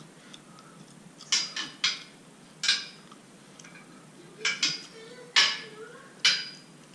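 Irregular metallic clinks and knocks, about eight, as a toddler bangs and handles things on a metal shoe rack. They come in small clusters about a second apart, the loudest a little past the middle.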